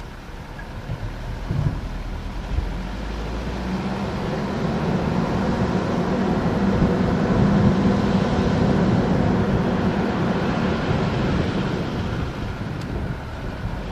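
Mitsubishi Pajero engine driving up a rough off-road track. Its hum swells over the middle of the stretch and eases near the end, with wind noise on the microphone.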